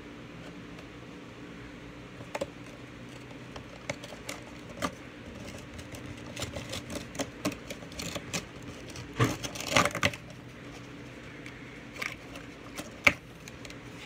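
Cardboard and plastic toy packaging being opened and handled: scattered clicks and taps, a louder crinkly rustle about nine to ten seconds in, and a sharp click about thirteen seconds in.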